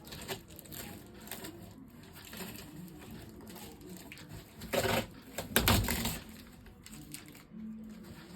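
Laptop packaging being handled and unpacked: scattered rustling and small clicks, with a couple of louder knocks about five and six seconds in.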